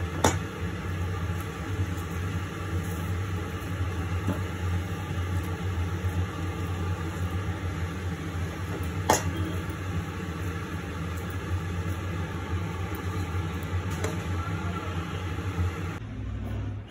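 A steady motor hum runs on with a low drone and evenly spaced tones above it, like a kitchen fan. It drops away suddenly near the end. A steel plate lid on a cooking pot gives two sharp clinks, one right at the start and another about nine seconds in.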